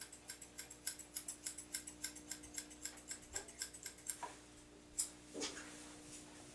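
Dog-grooming thinning shears snipping through long coat hair in a quick, even rhythm of about four snips a second, stopping about four seconds in; a single louder click follows about a second later.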